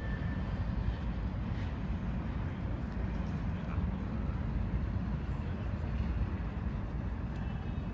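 Freight train of tank cars and covered hoppers rolling by, a steady low rumble.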